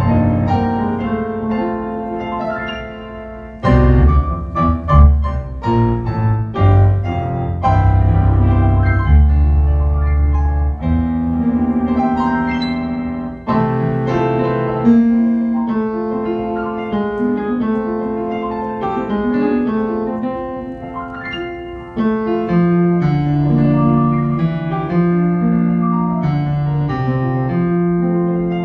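Piano played on a Yamaha S90 ES stage keyboard: full two-handed chords over a strong bass line, in phrases with brief dips in loudness between them.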